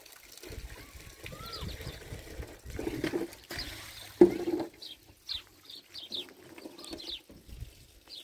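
Small birds chirping repeatedly, outdoors in the open air, with low thumps and scuffs in the first few seconds and one sharp knock about four seconds in.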